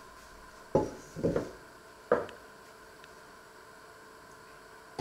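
Three short knocks, the first under a second in and the last about two seconds in, as a metal frying pan is picked up and handled over a wooden table.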